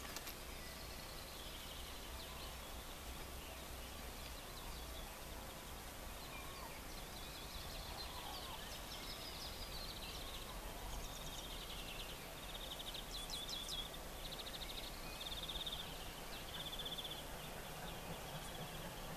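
Birds singing in the woodland beside the line: several songs of trills and quick runs of short repeated notes, over a faint steady low hum.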